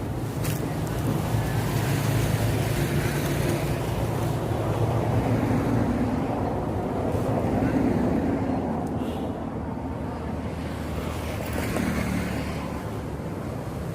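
Wind rumbling on the microphone over a steady low engine drone.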